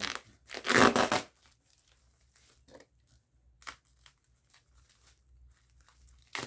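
Packing tape and plastic wrap being torn off a foam-wrapped package: one loud rip about a second in, then light rustling of the plastic and a short sharp rip at the very end.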